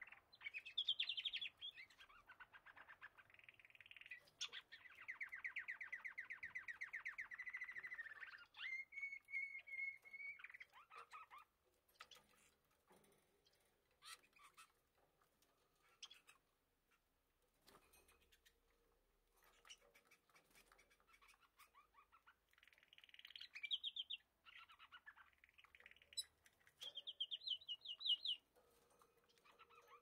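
Budgerigars warbling and chattering, a run of busy song that falls away to scattered chirps and clicks midway, then picks up again with a fast trill near the end.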